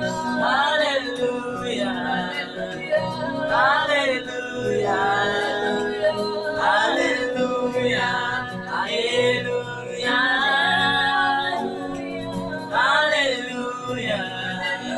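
Three voices, a man and two women, singing a worship song together in harmony with sliding vocal runs, over sustained chords from a Yamaha electronic keyboard.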